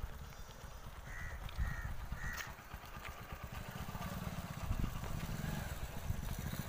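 A crow cawing three times in quick succession, about a second in, over a steady low rumble.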